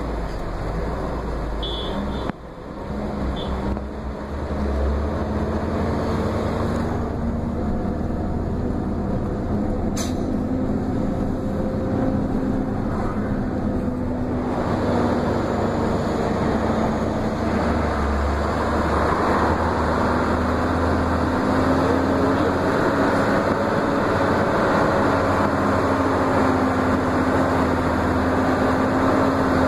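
A heavy vehicle's engine drone with tyre and wind rush, heard from on board while driving. The sound dips briefly about two seconds in, then builds back and holds steady, with a single sharp click about ten seconds in.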